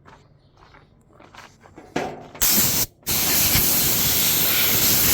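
A few faint knocks, then a compressed-air blow gun hissing: a short blast about two and a half seconds in, a brief stop, and a steady blast from about three seconds on.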